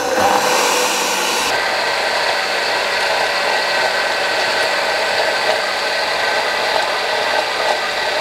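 Countertop blender motor running steadily with a whine, puréeing thick broccoli soup that has just been thinned with cooking water. Its high hiss drops away about a second and a half in, and it switches off near the end.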